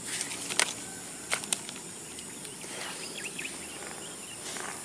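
Steady high-pitched drone of insects, with a few sharp clicks of handling in the first second and a half and faint short chirps about three seconds in.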